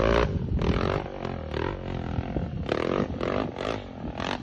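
Off-road motorcycle engine revving in repeated bursts as the rider works the throttle on a dirt trail, rising in pitch at the start and then swelling and easing off several times.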